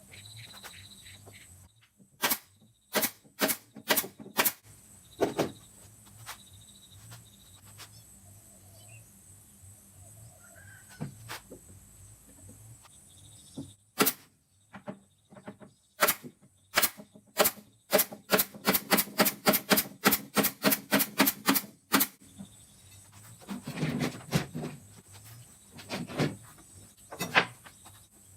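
A series of sharp clicks and knocks: a few spaced ones, then a quick run of about five a second, then a duller cluster near the end.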